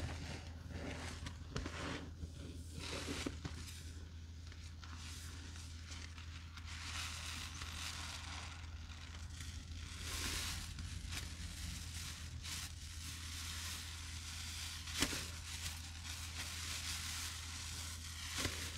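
Sponges soaked with Murphy's Oil Soap and Comet cleanser powder being squeezed and worked by gloved hands: a continuous wet, gritty crackling and fizzing, with a few sharp clicks, one standing out near the end.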